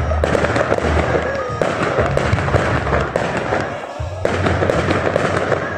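Fireworks display: aerial shells bursting and crackling in rapid succession, with a brief lull about four seconds in, while music plays alongside.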